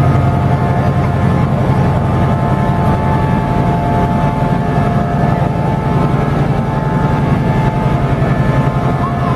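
Nohab-built MÁV M61 diesel locomotive's EMD 16-567C two-stroke V16 engine running steadily, a deep low throb with a steady whine above it.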